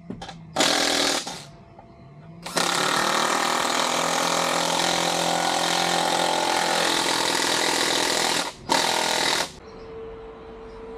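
A handheld power tool running in three bursts: a short one about half a second in, a long one of about six seconds, and another short one near the end, each starting and cutting off abruptly.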